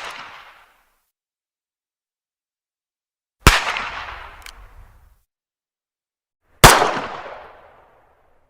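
Two 9mm pistol shots about three seconds apart. Each is a sharp crack followed by about a second and a half of fading echo. The tail of an earlier shot dies away at the start, and a faint click comes about a second after the first full shot.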